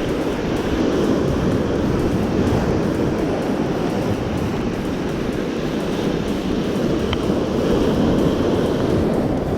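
Steady wind rumbling on the microphone over the rush of surf, with one faint click about seven seconds in.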